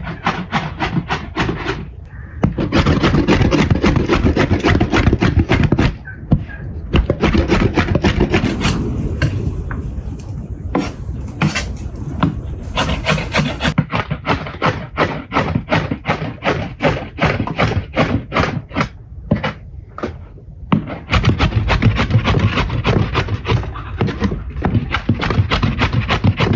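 Large cleaver rapidly chopping raw meat into mince on a wooden cutting board, a fast steady run of knocks about five or six a second, broken by a couple of short pauses.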